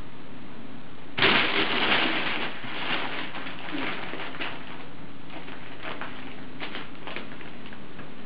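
Crinkle-tube cat toy crackling as a cat plays in and against it: a loud burst of crinkling about a second in, tapering into scattered crinkles over the next several seconds.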